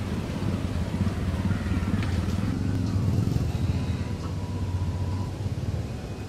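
A motor vehicle's engine passing: a low hum that swells a few seconds in and fades toward the end.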